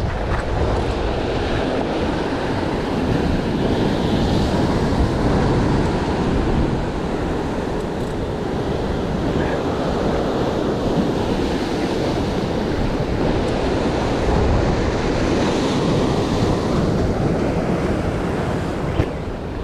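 Ocean surf breaking and washing against a rocky shoreline, with wind buffeting the microphone. The noise swells and eases, louder around four to six seconds in and again around fourteen to sixteen seconds.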